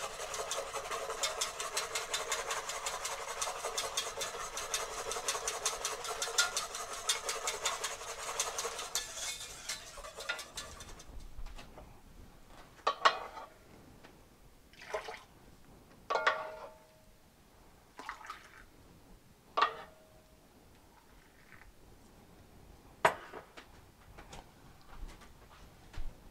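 Wire whisk beating rapidly around the inside of an enameled cast-iron pot, frothing hot cocoa, for about ten seconds. Then it stops, and about seven separate clinks and knocks of kitchenware follow, two of them ringing briefly.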